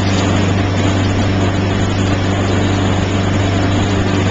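Motorboat engine running steadily under load while towing, a constant low drone over the rushing noise of the churning wake.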